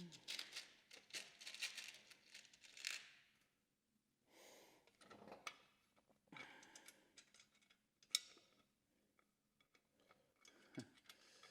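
Faint clicking, rattling and rustling of small hardware and plates being handled during hand assembly of floorboard panels with screws and nuts. The busiest stretch is the first few seconds, and there is a sharp click about eight seconds in.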